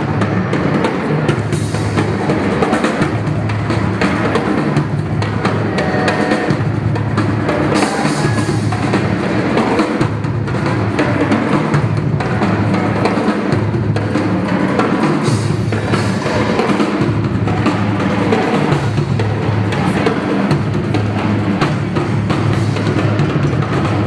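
Live drum kit playing a busy beat with bass drum and snare over loud amplified backing music.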